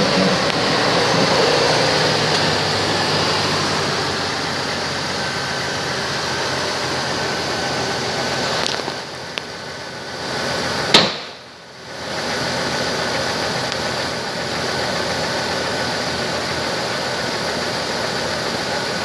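2004 Chevrolet Trailblazer EXT engine running steadily. A single sharp click about eleven seconds in, with the sound briefly dropping away around it.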